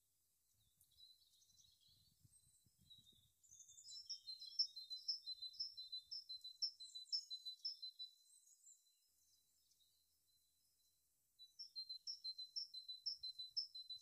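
Red-wattled lapwing calling, a rapid run of sharp, high notes at about three a second, in two bouts; the second bout starts about eleven seconds in.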